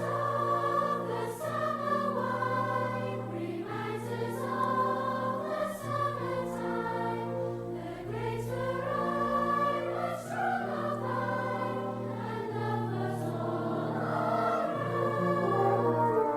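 Outro music: choral singing in long held, slowly shifting chords over a steady low note.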